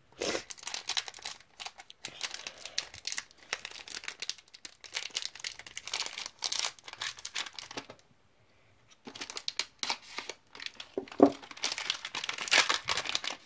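Foil wrapper of a Pokémon XY Steam Siege booster pack being torn open and crumpled by hand: a run of crackling crinkles that stops for about a second a little past the middle, then starts again.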